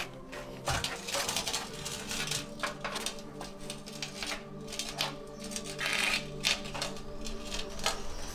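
Heavy ceramic tandoor being tilted and rolled on its base rim across paving stones: an uneven run of scraping and knocking clatters.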